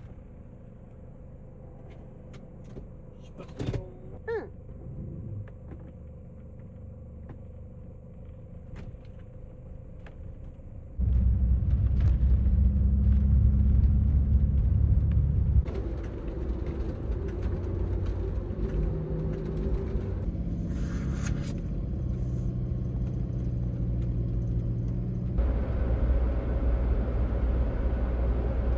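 Vehicle on the move: low road and engine rumble of a camper van driving, with a few short clicks early on. The rumble turns much louder about eleven seconds in and shifts in level again later.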